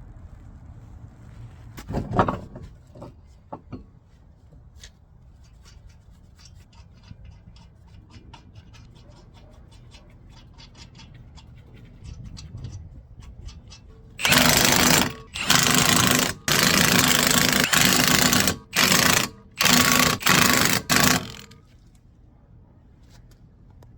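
A knock, then a run of quick light clicks, followed by a power tool run in a string of loud short bursts of a second or two each, with brief pauses between them.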